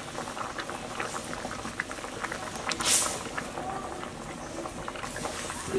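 Thin curry (jhol) bubbling at a rolling boil in a wok, full of small pops and a steady hiss. About three seconds in there is one short, louder splash as pieces of raw eggplant are dropped into the boiling curry.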